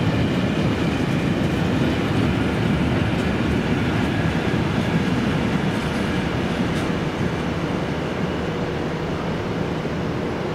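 Freight train of loaded open wagons rolling away on the rails: a steady rumble of wagon wheels that slowly fades as the train recedes.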